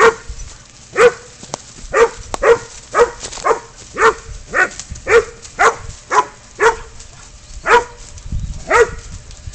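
Pig dog baying at a goat it has bailed up: a steady run of single loud barks, about two a second, with a slightly longer pause near the end.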